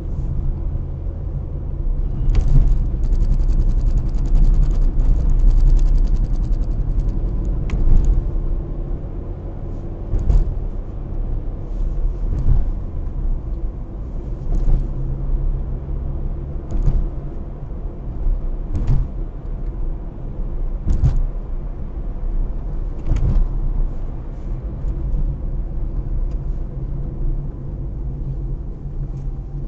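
Car driving at about 50 to 60 km/h, heard from inside the cabin: a steady low rumble of engine and tyres on the road. A fast fine rattle runs for a few seconds near the start, and short knocks come every couple of seconds.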